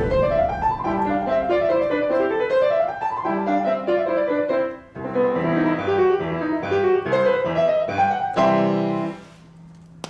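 Piano playing quick, flowing runs of notes that climb and fall over a bass line. The playing breaks off briefly about halfway through and ends with a loud chord that fades out about a second before the end.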